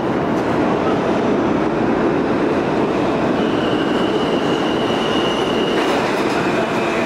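New York City subway R train pulling out of an underground station and running off down the tunnel: a steady rumble of wheels on rail. A thin, high wheel squeal comes in about three seconds in and drops slightly lower near the end.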